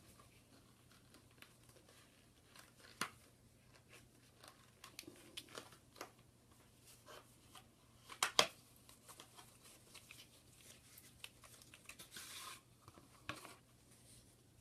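Faint scattered clicks and taps with a short rustle of plastic packaging, as a replacement iPhone screen is unwrapped and handled.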